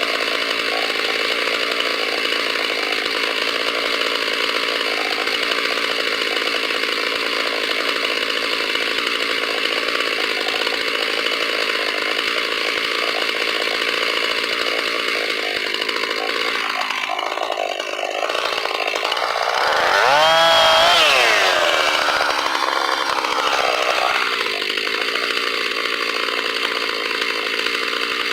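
Chainsaw running at high speed, cutting into wood for chair carving. About two-thirds of the way through, its pitch dips and then swings up and back down once before it settles to a steady cut again.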